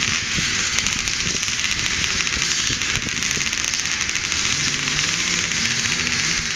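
Many vintage motocross motorcycles running and being blipped together at the start line, a dense crackling din with short engine notes rising and falling underneath.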